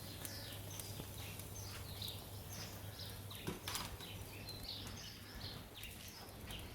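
Small birds chirping repeatedly in short, quick, falling calls, faint against the outdoor background, with one sharp click about three and a half seconds in.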